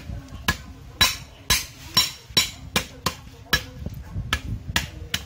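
Steel meat cleaver striking lemongrass stalks on a wooden chopping board: about a dozen sharp chops in a steady rhythm, roughly two a second.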